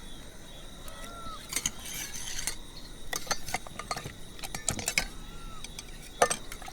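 Scattered clicks and light clatter of small hard objects being handled, with a louder knock near the end.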